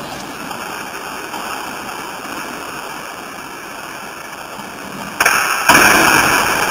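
Skateboard wheels rolling on a concrete floor, a steady rushing noise that gets louder about five seconds in as the board rides onto a ledge of stacked wooden pallets.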